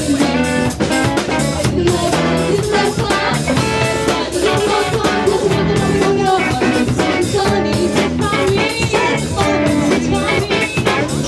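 Band music with a steady drum-kit beat, guitar and singing.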